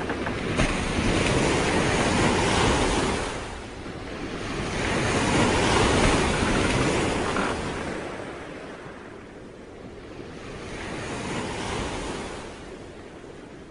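A rushing noise that swells and fades in slow waves, loudest about one to three and five to seven seconds in, quieter near the end.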